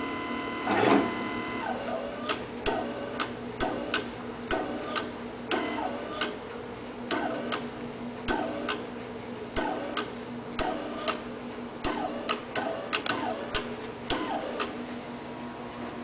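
Rexa electrohydraulic actuator's brushless motor and gear pump running in short pulses as the arm is inched down under control. A steady whine lasts about a second and a half, then comes a string of clicks, about two a second, each with a brief falling whine, over a steady hum.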